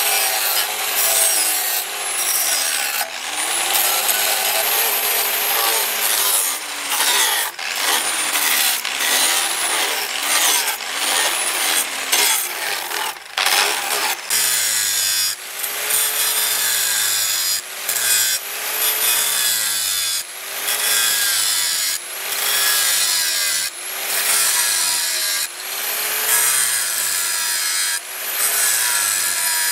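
Handheld angle grinder with an abrasive disc grinding a spring-steel knife blank, showering sparks; the motor's pitch rises and falls with each pass across the steel, about one pass every second or so.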